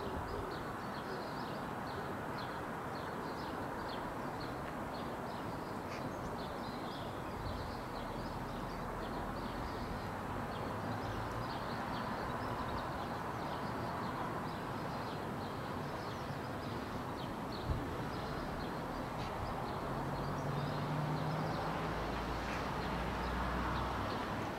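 Outdoor ambience: many short, high bird chirps over a steady background rush, with a low hum joining about twenty seconds in.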